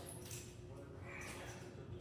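Quiet room tone: a faint steady low hum, with no distinct knock, click or voice.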